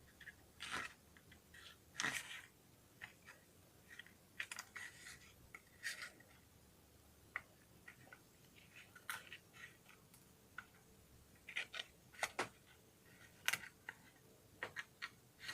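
Irregular small clicks and short scratching sounds from handling matches and a matchbox, a few louder scrapes scattered among them.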